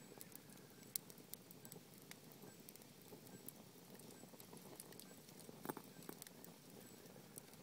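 Wood campfire crackling: a quiet, steady rush of burning logs with frequent small crackles and pops, two sharper pops about a second in and just before six seconds.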